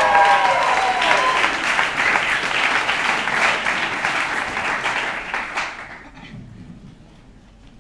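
Audience applauding, with high cheering voices over it at the start; the clapping fades away about six seconds in.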